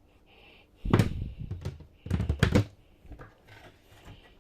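Two clusters of knocks and thuds, about a second in and again about two seconds in, with a few lighter ticks after.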